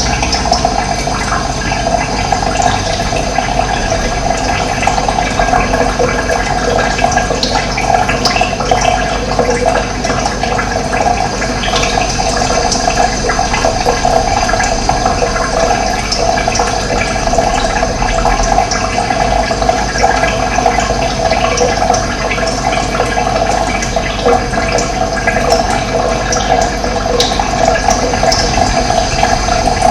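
Running water flowing steadily, a continuous rushing and gurgling.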